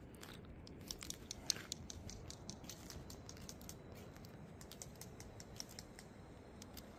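Faint steady rushing of a river, with scattered light clicks and ticks over it.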